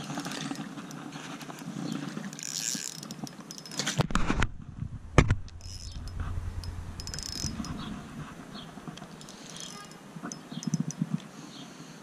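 Handling noise on a chest-mounted GoPro: rubbing, scattered clicks and a few hard knocks, the loudest about four and five seconds in, followed by a low rumble.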